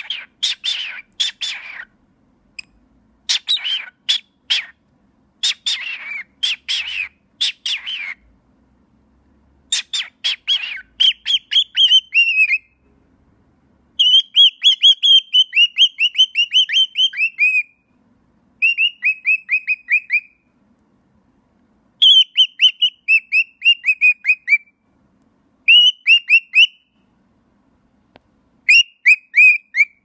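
Cockatiel calling right at the phone's microphone. First come short bouts of scratchy chatter, then rapid runs of short, high chirps that each slide down in pitch, in bouts of a few seconds with brief pauses between them.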